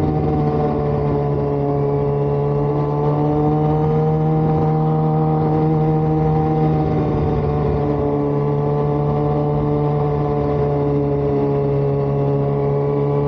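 Sport motorcycle's engine running at a steady cruising pitch, heard from the rider's seat with a rush of road and air noise underneath; the note holds nearly level and sinks slightly.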